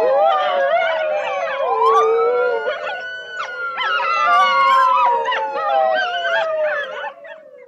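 An emergency siren wailing slowly, falling, rising again about two seconds in, then falling once more, while a pack of canines howls along with it in many overlapping wavering voices. Everything fades out near the end.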